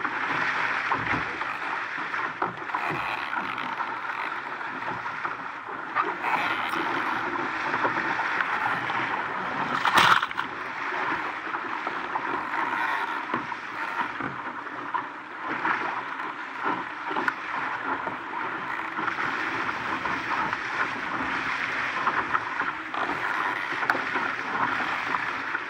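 Water rushing and splashing along the hull of an RS Aero 7 sailing dinghy under sail, a steady wash of noise. A single sharp knock stands out about ten seconds in.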